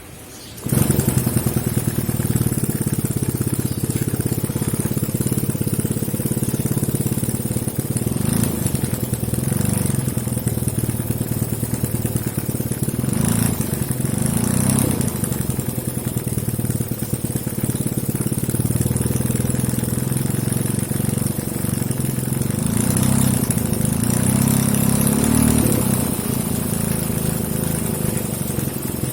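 Small homemade four-stroke engine built from a refrigerator compressor, running with rapid firing pulses after starting abruptly about half a second in; its speed rises and falls a few times.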